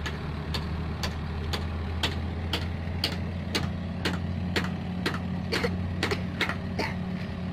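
An engine running steadily, with a sharp tick about twice a second.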